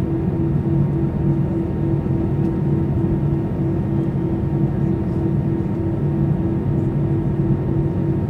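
Airbus A319 jet engines idling, heard from inside the passenger cabin: a steady low drone with a regular pulsing throb, the engines at idle power before the takeoff roll.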